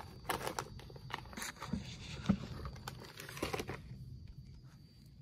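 Crinkling and rustling of a plastic potato chip bag being handled, in irregular sharp crackles that die down about four seconds in.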